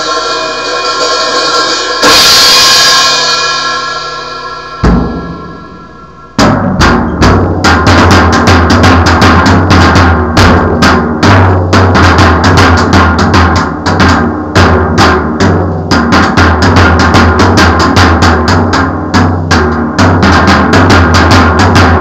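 A drum kit played with music: a loud cymbal crash about two seconds in rings out as the music fades, then after a single hit, fast steady drumming over a low bass comes in about six seconds in and keeps going.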